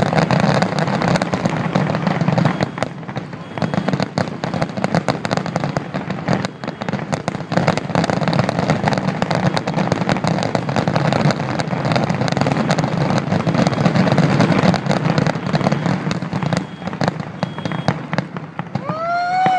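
Aerial fireworks finale: a dense, continuous barrage of shell bursts and crackling, many sharp cracks every second over a steady low rumble.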